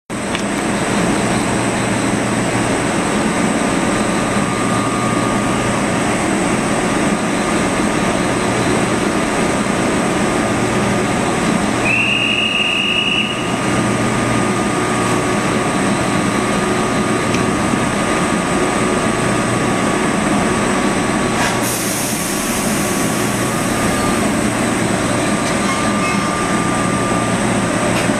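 JR West 583-series electric train standing at the platform with its on-board equipment running: a steady hum and whir. About twelve seconds in, a short high whistle-like tone sounds, and a little past two-thirds of the way a hiss of air starts up.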